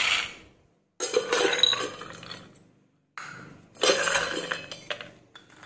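Raw peanuts rattling against stainless steel as they are scooped with a steel tumbler and poured into steel bowls, with metal clinks of the tumbler on the containers, in three separate pours.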